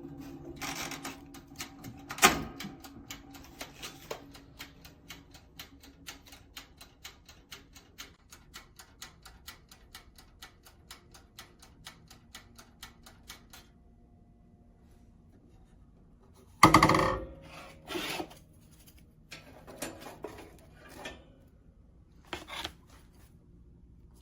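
Wind-up mechanical timer of a small toaster oven ticking rapidly and evenly, several ticks a second, stopping about 13 seconds in. Then a loud knock and a few softer clatters of handling.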